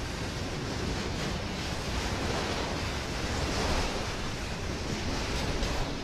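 Freight train of autorack cars rolling past close by: a steady, even rolling noise of steel wheels on rail, with no horn or engine note.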